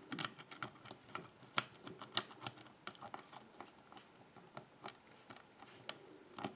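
Faint, irregular clicks and ticks of a hook pick working the pins of a six-pin pin-tumbler lock with spool security pins, held under a tension wrench while the pins are being set again.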